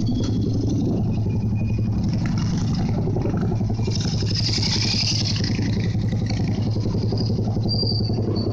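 Motorcycle engine running steadily with a constant low hum, heard from onboard a moving motorcycle among other bikes and traffic.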